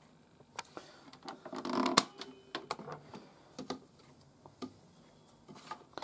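Scattered light clicks and taps from handling a Theo Klein Miele W1 toy washing machine, ending with a cluster of clicks as its porthole door is pulled open.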